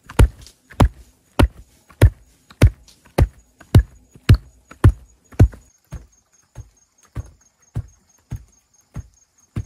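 Hand tamper pounding an earth floor flat: steady dull thuds, a little under two a second, growing softer about six seconds in.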